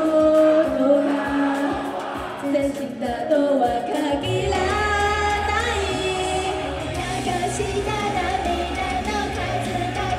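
Pop song performed live, with female voices singing over the accompaniment. Deep bass comes in about four seconds in and fills out the sound.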